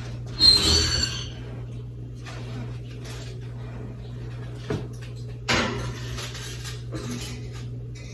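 Kitchen clatter of a baking pan and an oven door being handled: a loud scraping clatter about half a second in, a sharp knock near the middle and another clatter just after, over a steady low hum.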